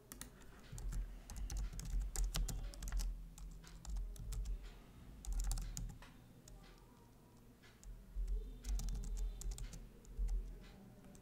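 Typing on a computer keyboard in quick bursts of keystrokes, pausing for about two seconds a little past the middle before starting again.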